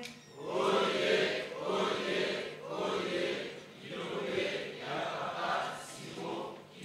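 Church congregation chanting in unison in a reverberant hall, answering a call-and-response acclamation with a short phrase repeated about once a second.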